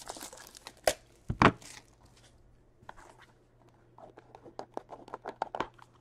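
Plastic shrink-wrap crinkling and tearing as it is stripped off a sealed Upper Deck hockey card box, with two sharp knocks of the box about a second in. Near the end, a quick run of light taps and scrapes as the cardboard box is opened and the inner box slides out.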